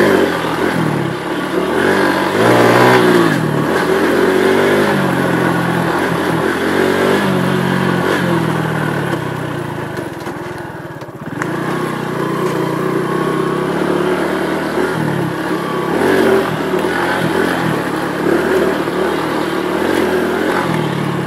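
Honda Pop 110i's small single-cylinder four-stroke engine revving up and down as the bike is ridden over a dirt track, the pitch rising and falling with the throttle. The throttle is eased off briefly about ten seconds in, then the engine picks up again.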